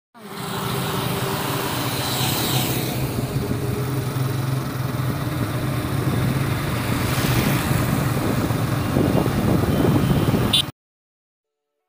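Motorcycle engine running on the road with wind rush, a steady low drone under a noisy hiss. It cuts off abruptly to silence about a second before the end.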